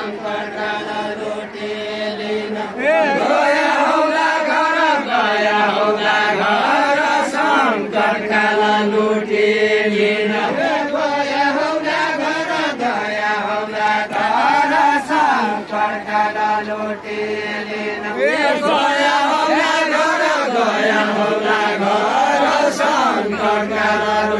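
Deuda folk singing: a voice sings long, wavering melodic phrases in the Far-Western Nepali deuda style, over a steady low drone.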